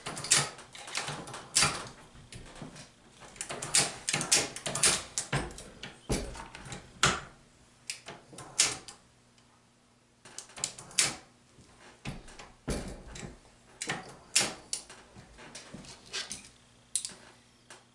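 Irregular metallic clicks and clacks of a single-stage reloading press being worked by hand to seat and crimp bullets in .223 Remington cases: brass set into the shell holder and the press ram cycled, with a short pause about nine seconds in.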